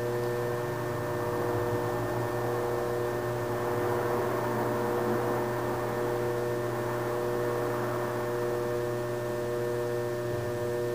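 Electric potter's wheel motor running with a steady hum, several constant tones held over a faint noise.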